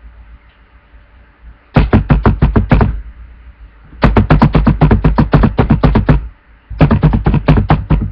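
Fast, heavy typing on a laptop keyboard close to the built-in microphone: three bursts of clattering keystrokes, about seven a second, each with a dull thump, separated by short pauses.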